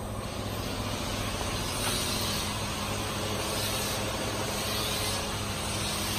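A small engine running steadily, a low hum under a steady hiss.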